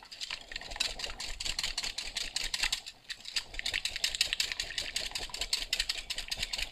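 Metal wire whisk beating eggs in a glass bowl, the wires clicking rapidly and steadily against the glass.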